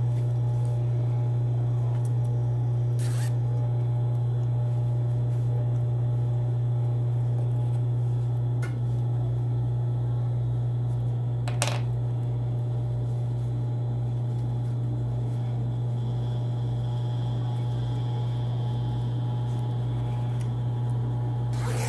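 Steady low hum of an industrial sewing machine's motor running idle, with a few sharp clicks as the fabric and zipper are handled.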